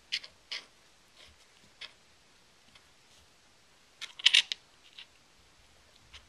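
A cat pawing at a quarter on a hardwood floor: scattered short clicks and scrapes of the coin and paw on the wood, the loudest flurry about four seconds in.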